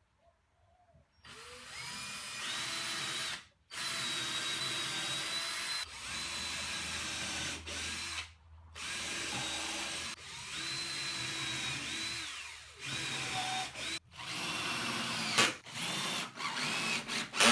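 Power drill driving screws to temporarily join two timber beams. It runs in repeated bursts of one to two seconds, its motor whine rising at the start of each and cutting off sharply, with shorter bursts near the end.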